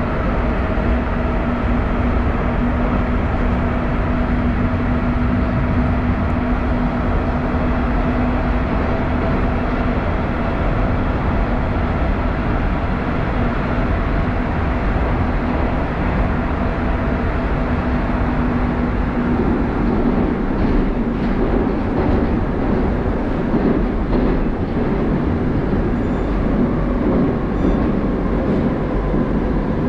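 Inside a moving 81-740 Rusich metro car: steady rumble of the wheels on the rails with a steady whine from the drive running over it. About two-thirds of the way through the whine drops away and the rumble turns rougher.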